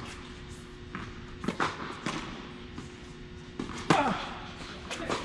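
Tennis rally: a tennis ball struck by rackets and bouncing on the court, a string of sharp pops every second or so, the loudest about four seconds in.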